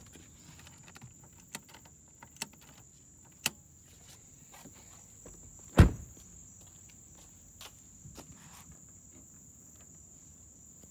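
A few sharp clicks and footsteps around a 2008 Lexus LS460L as its hood release is worked, with one heavy thud from the car's body about six seconds in. A steady high cricket trill runs underneath.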